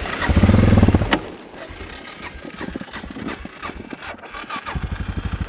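Suzuki dirt bike engine revving for about a second as the pontoon-fitted bike rolls into the water. The note then drops away to a weak, uneven putter before the firing pulses build up again near the end. The engine is bogging down, close to stalling, on entering the water, which the rider puts down to the cold or to his easing off the throttle.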